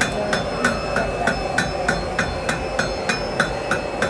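Blacksmith's hammer striking hot iron on an anvil in a steady rhythm, about three blows a second, each blow leaving a short metallic ring.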